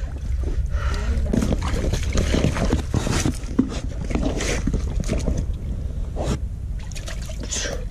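Rubber boots splashing and sloshing through shallow muddy water, with gloved hands scrabbling in a puddle among loose stones: a series of irregular splashes and knocks over a steady low wind rumble on the microphone.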